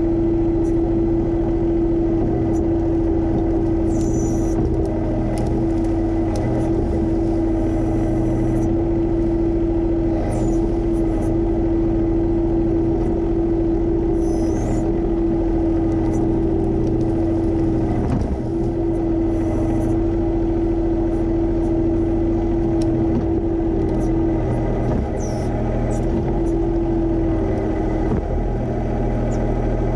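John Deere 1025R compact tractor's three-cylinder diesel engine running at a steady speed, with a constant tone. Brief faint high squeaks come every few seconds.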